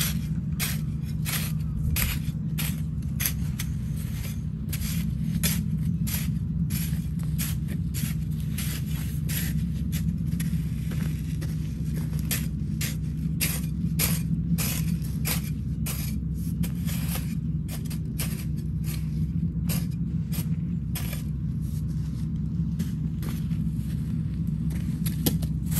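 A hoe chopping and scraping into soil in a steady run of strokes, roughly one to two a second, as it digs a ring around a young sapling. A steady low hum runs underneath.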